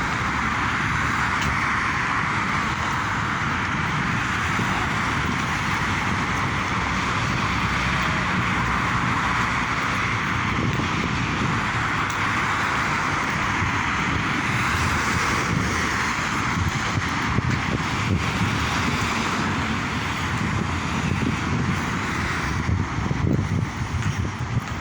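Steady seaside noise: a constant rushing of surf and wind with no distinct breaks.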